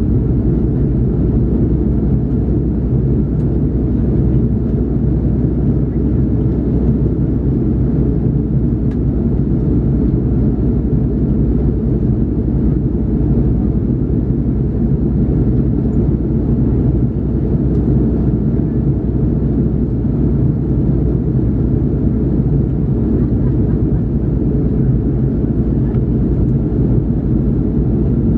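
Steady low drone inside the cabin of an Airbus A330-300 climbing toward cruise: its two Pratt & Whitney PW4168A engines and the rush of air over the fuselage, even and unchanging.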